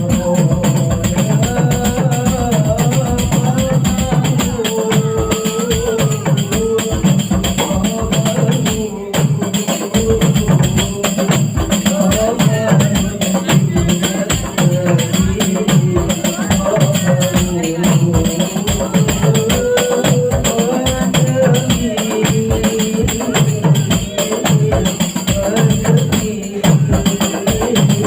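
Hadroh ensemble: rebana frame drums beating a fast, steady rhythm under a sung melody.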